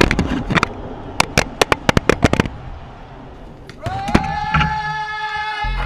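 A rapid run of sharp clicks and knocks for the first two and a half seconds, then music comes in: held tones slide up into a sustained chord about four seconds in, and a deep bass enters near the end.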